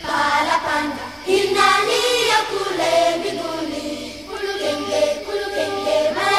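A choir singing in harmony over steady low notes.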